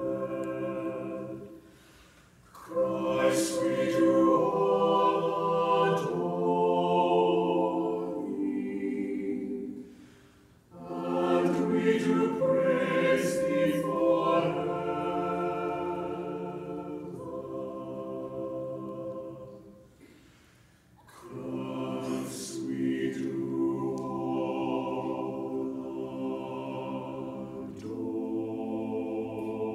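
Mixed choir of men's and women's voices singing in sustained harmony, in long phrases with three brief breaks between them.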